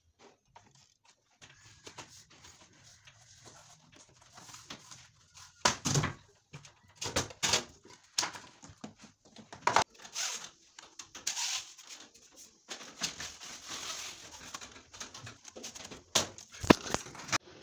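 Hammer blows fixing PVC wall panels in place: a series of sharp, irregular knocks, several close together in the middle and a few more near the end, with faint rustling of the panels being handled between them.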